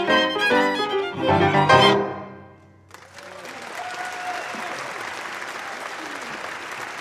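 Piano trio of violin, cello and grand piano playing the closing notes of a piece, which die away about two seconds in. After a brief hush, the audience begins applauding about three seconds in.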